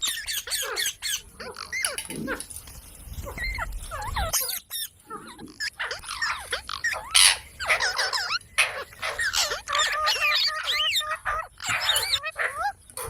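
A parrot chattering and squawking: many short, rapidly rising and falling chirps and whistles, with a loud harsh squawk about seven seconds in.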